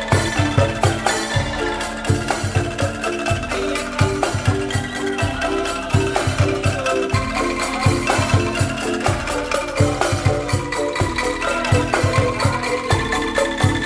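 Bamboo street ensemble playing a funk-style tune: a struck bamboo calung and angklung carry a stepping melody over a drum kit and large drums keeping a steady beat.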